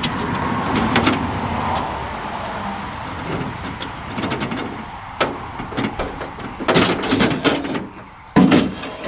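Scraping and sliding of a truck's door window glass and its track being worked inside the door, with several irregular clunks, the loudest near the end.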